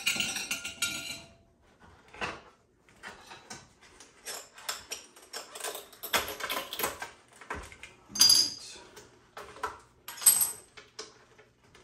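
Glass from a headlight lens clinking, knocking and scraping against the headlight housing and the granite countertop as the housing is handled and the glass is cleared out. A clatter comes at the start, and there are bright ringing glass clinks about eight seconds in and again about ten seconds in.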